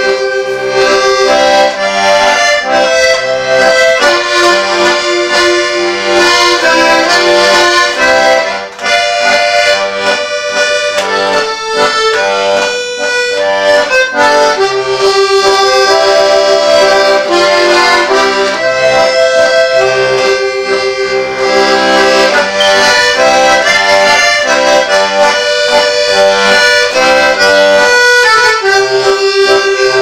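Button accordion (button box) playing a tune: a melody of held and moving notes over a steady repeating bass-and-chord accompaniment.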